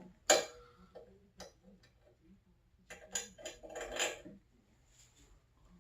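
Small metal hardware clinking and tapping as bolts and washers are handled: a sharp clink just after the start, scattered light ticks, then a cluster of clinks about three to four seconds in.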